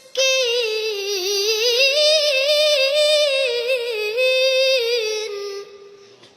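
A high voice chanting Quranic recitation in melodic tajweed style, holding one long ornamented note with a wavering vibrato. The note dips and rises in pitch, lasts about five seconds, then fades out near the end.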